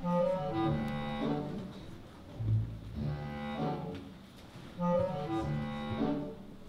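Live instrumental music from an opera performance: a short melodic phrase repeats about every two and a half seconds, each time over a low bass note.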